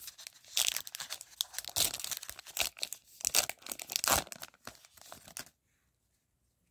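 A Topps Heritage High Number baseball card pack wrapper being torn open and crinkled by hand as the cards are pulled out, a dense run of crackling and tearing.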